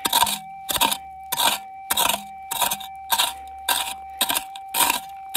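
A hand pick chopping repeatedly into red clay and stony dirt, about two strikes a second, with a steady high tone running underneath.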